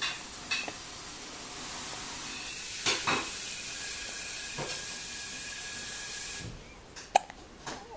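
A newborn baby hiccuping: several short, sharp hics a second or more apart, over a steady hiss that cuts off suddenly about six and a half seconds in.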